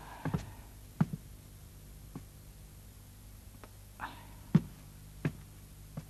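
Slow, irregular footsteps and light knocks, about eight sharp taps spaced roughly a second apart, over a faint steady low hum.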